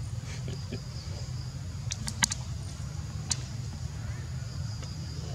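Outdoor ambience: a steady low rumble under a faint, even, high insect drone, with a quick cluster of sharp clicks about two seconds in and a single click about a second later.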